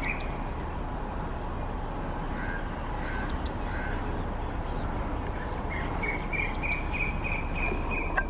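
Birds calling over steady background noise: scattered short chirps, then in the last two and a half seconds one bird repeats a clear note about three times a second.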